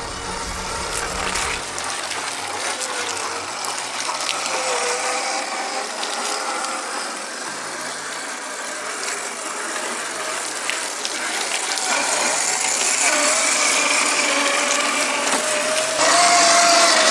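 RC scale crawler's electric motor and geared drivetrain whining as the truck crawls over rock, the pitch wavering with the throttle. It gets louder near the end as the truck drives close by.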